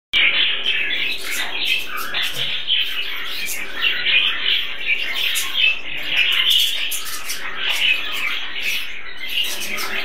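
Flock of budgerigars chattering, a dense, continuous twittering of many birds at once.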